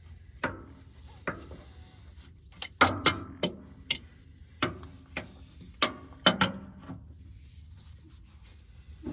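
About a dozen irregular sharp metallic clicks and clanks, bunched in the middle, from hand tools working to break loose the hydraulic hose fittings on a Caterpillar 312C excavator's boom.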